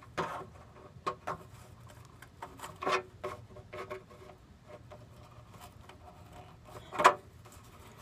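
Sheet-metal downspout being crimped with needle-nose pliers: scattered small clicks and creaks of the thin metal bending, with two louder crackles, one about three seconds in and one near the end.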